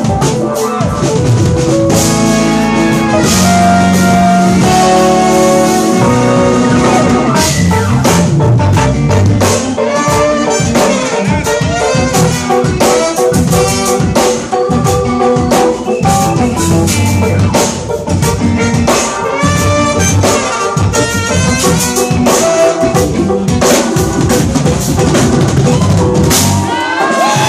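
A live jazz-fusion band playing: drum kit, electric bass, keyboards and horns (saxophone and trumpet) together, with steady drum hits under held and moving notes.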